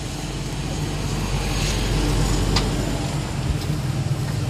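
Road traffic passing close by: a motor vehicle's engine running steadily over a hiss of tyre and street noise, with one short sharp click about two and a half seconds in.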